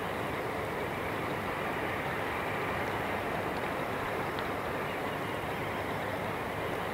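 A steady rushing noise with no tones or rhythm in it.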